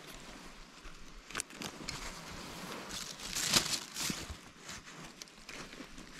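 Rustling and crinkling handling noise with scattered small clicks, from gloved hands, jacket sleeves and a plastic bag while nameko mushrooms are cut from a log with a small knife; the loudest rustle comes about three and a half seconds in.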